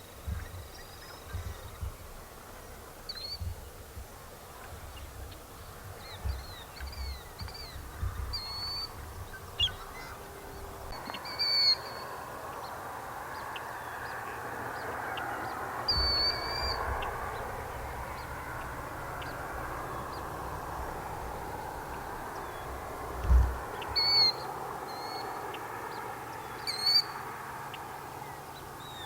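Marsh birds calling: many short, high, repeated call notes, with a few louder calls standing out. A steady background din of more distant calling sets in about a third of the way through.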